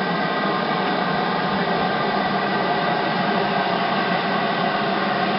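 LMS Black 5 4-6-0 steam locomotive hissing steadily as steam escapes from low down beside the cab, with no exhaust beats.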